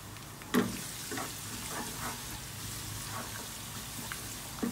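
Chopped garlic sizzling steadily in hot oil in a wok, with a wooden spatula scraping and knocking it around now and then; the sharpest stroke comes about half a second in.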